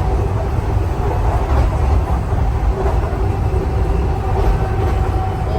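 Washington Metro 6000-series railcar running, heard from inside the car: a steady low rumble with a faint steady whine.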